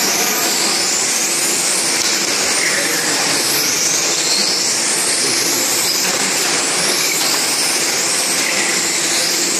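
Several electric radio-controlled racing cars with 17.5-turn brushless motors running laps, their high-pitched motor whines rising and falling and overlapping as they speed up and slow down, over steady tyre noise.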